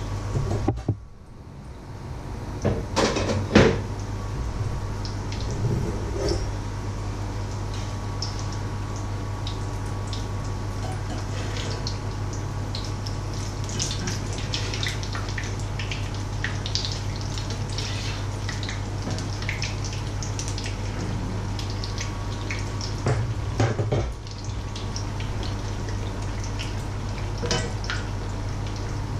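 Oil sizzling and spitting in a frying pan around frying batter fritters, a constant fine crackle over a steady low hum. Sharp clatters of a lid and metal utensils on the pan come a few seconds in and again about twenty-four seconds in.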